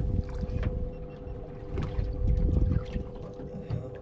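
Boat on open water: a steady hum with an uneven low rumble that swells about two seconds in, and a few light knocks from handling on deck.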